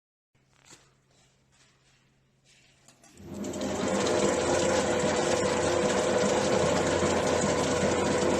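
Wire and cable packing machine starting up about three seconds in and running steadily with a hum, after a few faint clicks.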